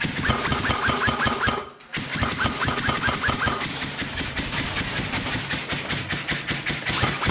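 Airsoft gun firing fully automatic, a rapid even stream of shots that breaks off briefly a little under two seconds in and then resumes.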